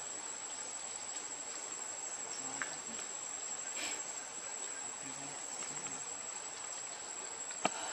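Steady, high-pitched drone of insects such as crickets or cicadas, with a sharp click near the end.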